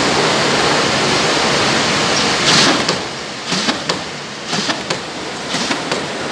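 Corrugated pizza-box production machine running, three-colour printing and cutting, with a loud steady hiss of machinery. The hiss swells about two and a half seconds in, then drops a little, and irregular sharp clicks and clacks come through it.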